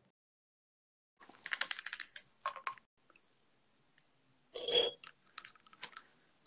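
Close-up handling noise of small plastic items: a run of quick clicks and rattles about a second in, a louder knock-like rustle near five seconds, then a few light clicks.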